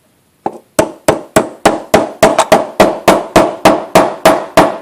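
A hammer striking a thin steel computer slot cover clamped in a vise, in a quick, even series of blows about four a second that starts about half a second in. Each blow rings briefly.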